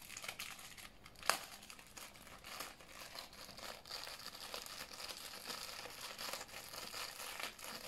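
Crinkling of a small clear plastic bag being handled and worked open, with one sharp click a little over a second in.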